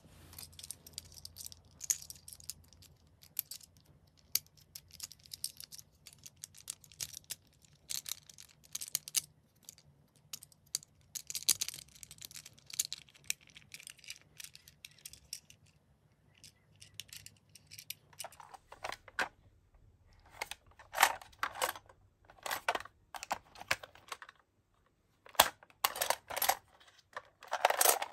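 Plastic toy parts of a small transforming toy ambulance clicking and snapping as they are handled and folded into place: a long run of light, rapid clicks. From about two-thirds of the way in, the clicks get louder and heavier, break off briefly, then come in a final loud cluster.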